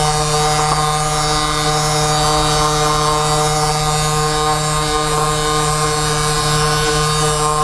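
Background music: a steady drone of held tones over a fast low pulse.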